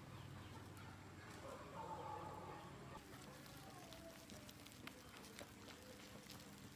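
Near silence: faint outdoor ambience with a few soft ticks and a faint, brief pitched sound about two seconds in.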